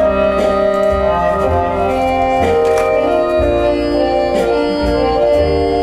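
Instrumental introduction of a Thai song, played back loud through Gauder Akustik Berlina RC-11 hi-fi loudspeakers: held chords over a bass line.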